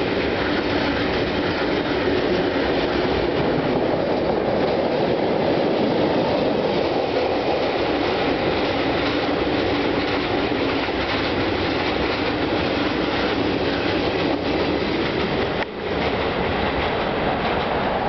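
Freight train of hopper wagons rolling past close by: a steady, loud rumble and rattle of steel wheels on the rails, briefly dipping near the end.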